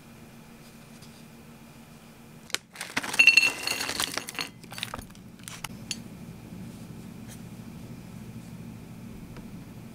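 Small round crunchy ramen-snack pieces poured from a snack pouch onto a plate, clattering and clinking against it for about a second and a half, followed by a few light clicks.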